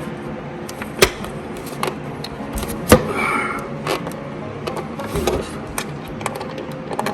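Irregular clicks and knocks of a screwdriver and the plastic and metal housing being handled while a window air conditioner is taken apart, the sharpest knock about three seconds in, followed by a brief squeak.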